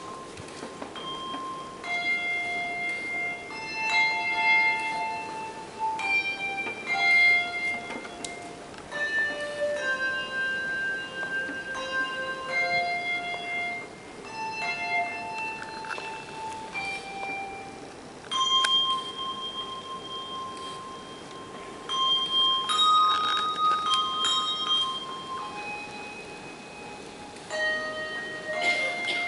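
Handbell choir playing a tune: single notes and chords struck in turn, each ringing on and overlapping the next.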